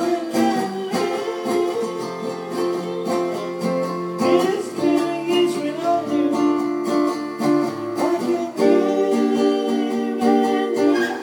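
Acoustic guitar strummed in a slow ballad, with a man singing along, both amplified through a Roland KC-110 amplifier.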